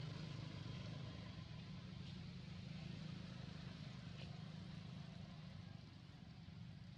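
Faint steady low rumble of background noise, with a faint tick about four seconds in.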